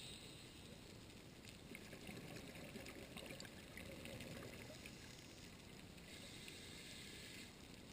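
Faint underwater sound on a scuba dive: low bubbling and scattered faint clicking, with a steady hiss for about a second and a half near the end. Typical of a diver breathing through a regulator: bubbles on the exhale, hiss on the inhale.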